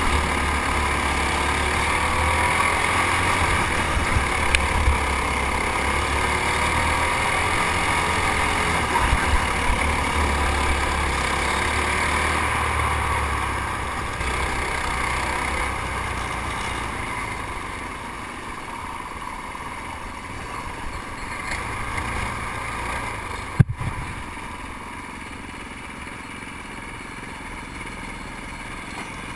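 Racing kart engine running at speed over the rumble of wind on the onboard camera, its pitch rising and falling as the driver works the throttle through the turns. About 18 seconds in the kart eases off and the sound drops to a quieter, steadier run, with a single sharp knock a few seconds later.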